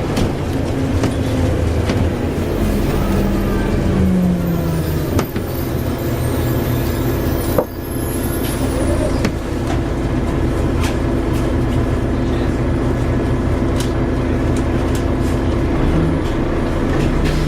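Volvo Olympian double-decker bus running under way, a steady engine drone with a falling note a few seconds in and one sharp knock about halfway through.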